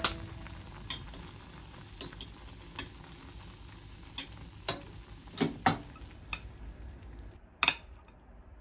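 Utensils clinking and tapping against dishes: about ten light, irregularly spaced clicks, over a faint steady hiss.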